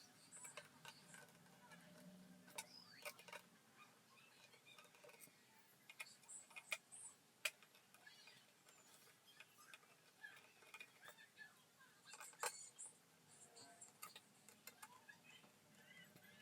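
Faint, scattered clicks and ticks of a small screwdriver and screws as screws are taken out of an Xbox Series S casing and motherboard, with one sharper click a little past halfway.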